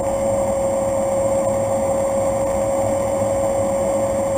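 Cessna Grand Caravan C208B's PT6A turboprop engine and propeller running steadily in flight on approach, heard inside the cockpit: an even drone with a steady whine through it.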